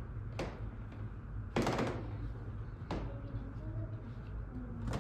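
A few scattered dull knocks, with a longer clatter about one and a half seconds in, over a steady low hum.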